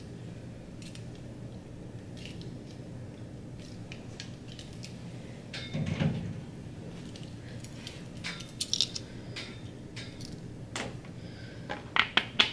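Light clicks and clinks from plastic parts and tubing being handled, with a soft thump about halfway through and a quick cluster of sharper clicks near the end, over a steady low hum.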